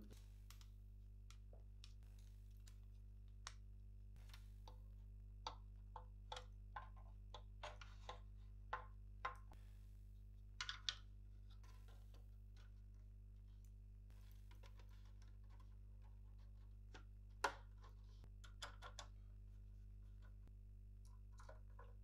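Faint clicks and light taps of a screwdriver working screws on a NAS fan bracket and of the plastic and metal parts being handled, scattered through the middle with one sharper click later on, over a steady low electrical hum.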